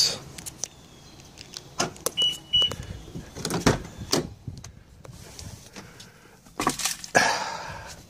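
Clicks and knocks of a pickup truck's door being opened and the cab being reached into, with two short high beeps a little after two seconds in.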